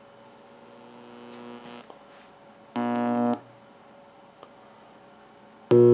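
Loud mains hum from a vintage Drake 2-B tube receiver played through a bare speaker: a steady buzzing tone that swells in, stops, and returns twice, louder each time, each burst cutting off abruptly. The hum comes from the receiver's failed main filter capacitor.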